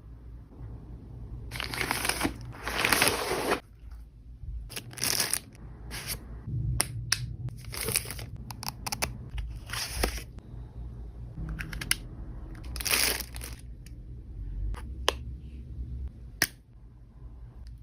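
Gift packaging being torn open and crumpled by hand: irregular rustling and crackling, with two longer tearing bursts a couple of seconds in and another in the second half.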